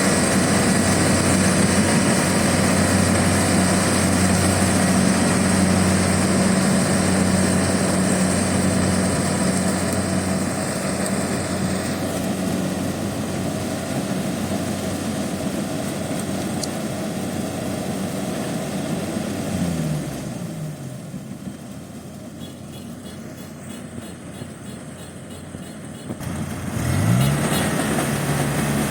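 Kubota DC70 rice combine harvester's diesel engine running steadily under load. About two-thirds of the way in it winds down to a quieter, lower idle, then revs back up near the end.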